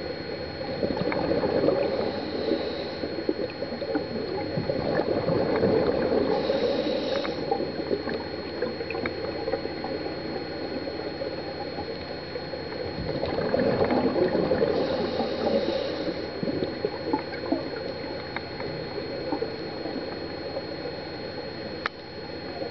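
Underwater scuba breathing: the rush and bubbling of a diver's exhaled bubbles through the regulator, swelling three times, with short hissing breaths. A steady thin high whine and scattered small clicks run under it.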